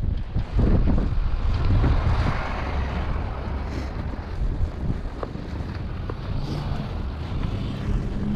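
Strong blizzard wind buffeting the microphone: a heavy, rumbling rush that eases somewhat after the first two or three seconds.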